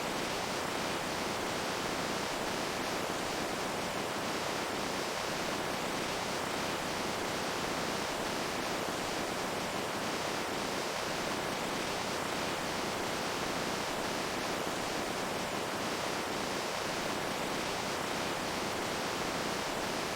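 Running water giving a steady, even rushing hiss with no breaks or changes.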